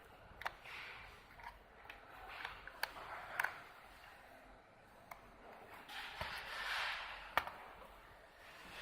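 Handling sounds: scattered sharp clicks and taps with soft rustling, the rustle strongest about six seconds in and the loudest click about seven seconds in.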